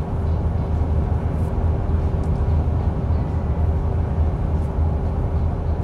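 Cab-interior drone of a 2023 Ford F-150's 3.5L twin-turbo EcoBoost V6 pulling steadily under heavy load at about 3,100 rpm in sixth gear while towing a heavy trailer uphill. The engine and road noise make a steady low rumble with a faint steady hum on top.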